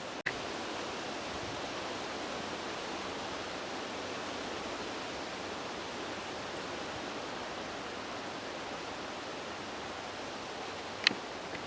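A steady, even rushing noise with no rhythm or tone, and a sharp click near the end.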